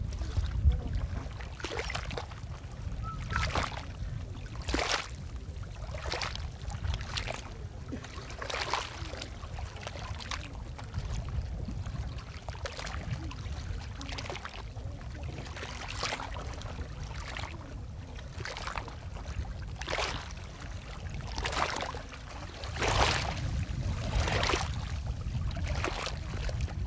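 Water splashing and dripping at the side of a small wooden fishing canoe as fishermen work with their hands in the water. The splashes are irregular, about one every second or so, over a steady low rumble.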